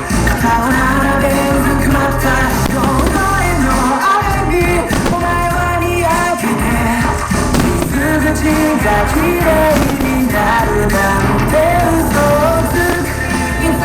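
Pop-rock song with a lead singer, played loud over a fireworks show's loudspeakers.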